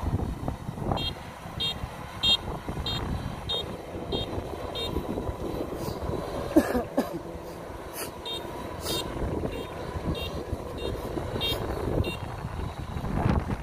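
Kubota DC-93 combine harvester running steadily while it works. Over the engine, a short electronic beep repeats about one and a half times a second, in two runs with a pause between, and a brief louder wavering sound comes about halfway through.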